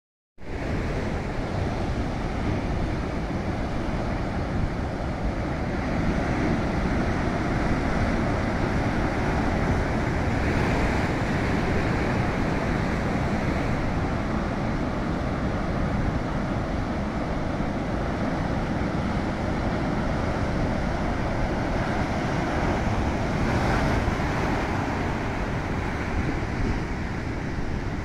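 Ocean surf breaking over coastal rocks: a steady rushing wash of foaming water with a deep rumble underneath, swelling now and then as bigger waves come in.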